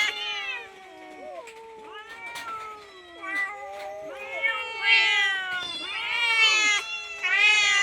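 Hungry domestic cat meowing repeatedly, begging for food: a loud call at the start that fades, softer calls, then louder, closely spaced meows again from about halfway through.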